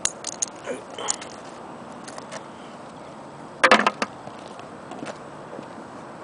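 Work boots stepping and scuffing on gritty concrete close to the microphone: a few sharp scrapes and clicks in the first second or so, then a louder clatter of hard knocks about three and a half seconds in, and a few faint steps after.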